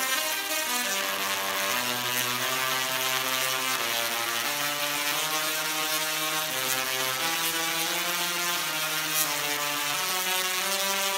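Musical Tesla coil, rated at 2 million volts, playing a tune through its spark discharge: a loud, buzzy tone that steps from one held note to the next, with a crackling hiss of sparks over it.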